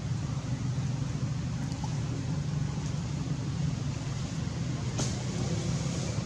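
A steady low rumble of outdoor background noise, with a faint click about five seconds in.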